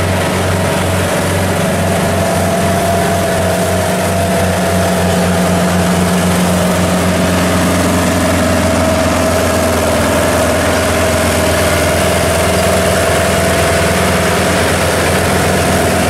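Engines of a tracked farm cart and a combine harvester running steadily under load as the combine tows the bogged, rice-laden cart out of deep mud by a chain. A low, even engine beat with a thin steady whine over it; the beat quickens a little about halfway through.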